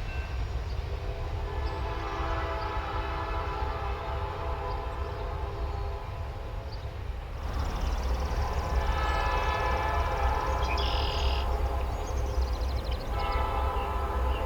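EMD diesel freight locomotive sounding its multi-tone air horn in two long blasts, with a third beginning near the end, over the low rumble of its diesel engine as the train passes.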